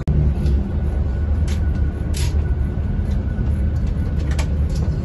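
Steady low rumble of a bus's engine and running gear heard from inside the passenger cabin, with a few light clicks.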